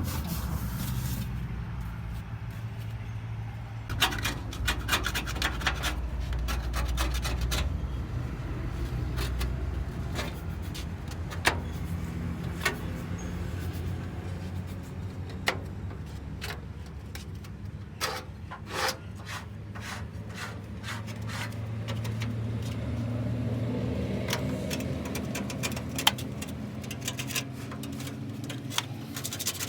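Scrubbing the rusty metal casing and damaged paint of a microwave: continuous rubbing with many scattered knocks, over a steady low hum.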